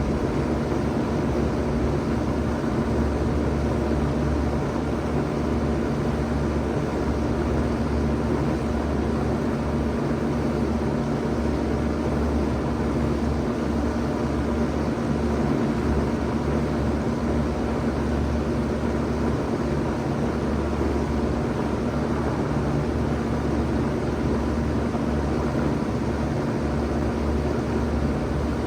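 1991 Bard Wall-Aire 3-ton wall-hung heat pump running steadily in heat mode: an even hum under a steady rushing noise.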